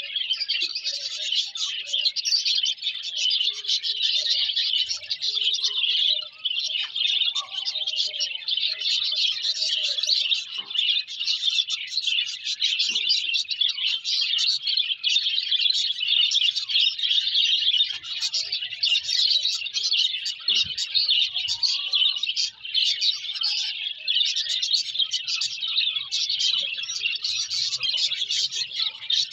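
A flock of small birds chirping all at once, a dense, continuous chatter of rapid high chirps with no break.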